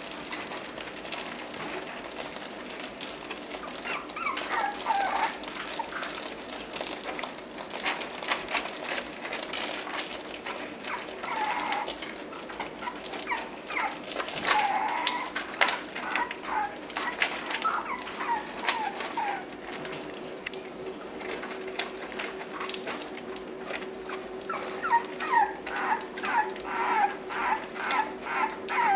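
Six-week-old Cavalier King Charles Spaniel puppies whimpering and yipping in short high cries, with a quick run of yips near the end, over scattered small clicks and scratches.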